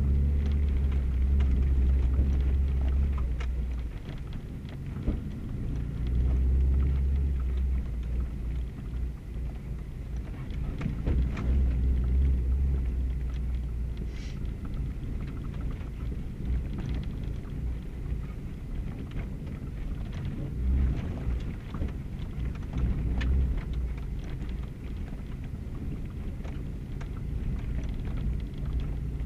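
Car driving on a dirt forest road, heard from inside the cabin: a low engine and tyre rumble that swells and eases, with gravel ticking and pinging against the underbody.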